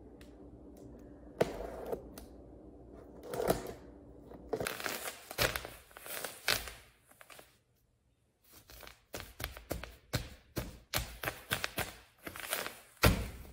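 Unboxing handling noise: scissors cutting packing tape and cardboard flaps being opened, then a plastic bag of sand crinkling and rustling as it is handled and set down. Irregular short rustles, tears and clicks throughout.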